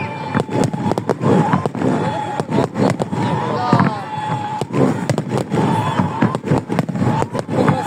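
Festive fireworks barrage: a rapid, irregular run of bangs and crackles, several every second without a break.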